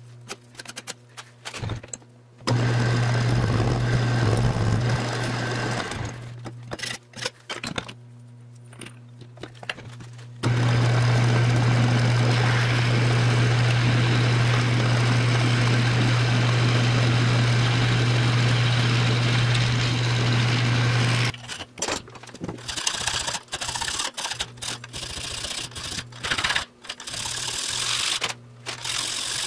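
Metal lathe motor running with a steady hum, twice, the second time for about ten seconds while a twist drill bores into a metal workpiece spinning in the chuck. After it stops, hand-file strokes scrape on a metal part clamped in a bench vise.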